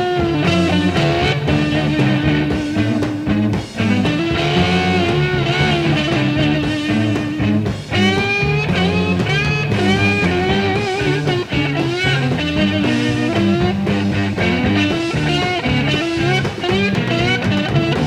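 Late-1960s psychedelic blues-rock recording in an instrumental passage: an electric guitar solo of bent, sliding notes over a repeating bass riff and drums, with no vocals.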